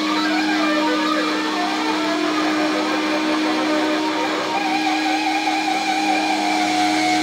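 Live sludge metal band's electric guitars and bass holding a sustained, droning chord. A higher wavering tone comes in about halfway through.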